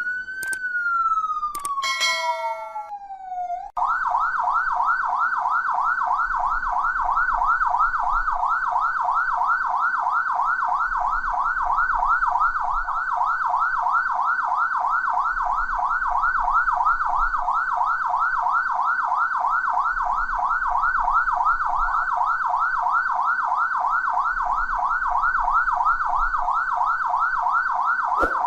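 Electronic police-car siren: a slow falling wail with a brief beep, then a switch about four seconds in to a fast yelp of quick rising sweeps, about three or four a second, held steady until it cuts off near the end.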